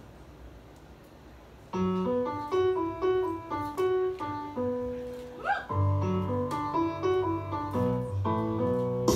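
Piano music starting about two seconds in over faint room noise, a melody of separate notes with a low bass line beneath.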